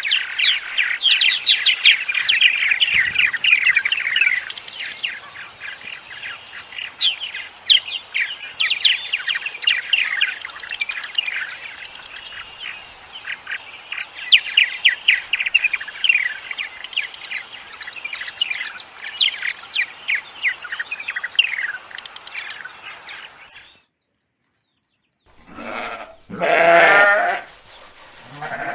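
Birds chirping rapidly and continuously, a dense run of quick high notes, which stops suddenly. After a short gap, goats start bleating near the end.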